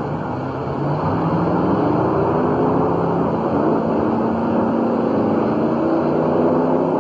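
Demolition derby cars' engines revving and running hard, several at once, their pitch rising and falling.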